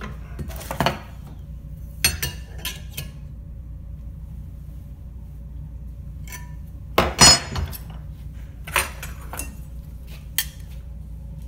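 Scattered metallic clinks and clanks as a metal orthotic stirrup and a bending tool knock against the jaws of a bench vise while the stirrup is bent and lifted out, the loudest clatter about seven seconds in.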